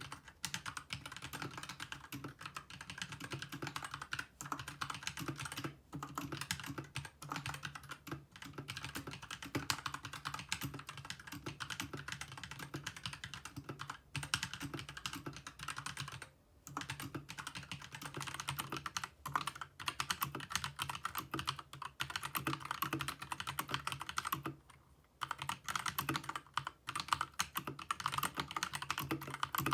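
Fast continuous typing on a Deltaco GAM-075-W 60% mechanical keyboard with red switches: a rapid clatter of keystrokes, heard through a phone's microphone, with short pauses about 16 and 25 seconds in.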